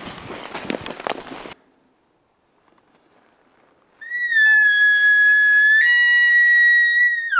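Footsteps through brush and deadfall for the first second and a half. Then, about four seconds in, a loud elk bugle blown on a hunter's call: a long high whistle that steps up once partway through and breaks sharply downward at the end.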